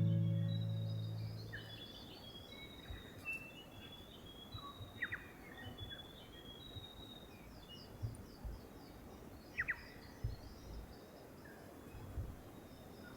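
Background music fading out in the first second or two, then forest birds chirping and calling, many short high notes with a few quick downward-swept calls. A few soft low thumps come and go.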